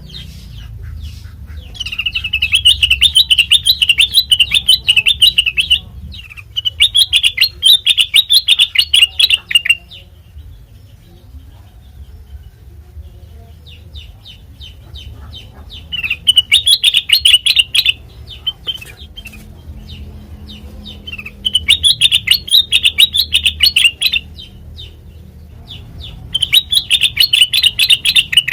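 Kutilang mas, a bulbul, singing in repeated bursts of rapid chattering song, each a few seconds long with short pauses between. A steady low hum runs underneath.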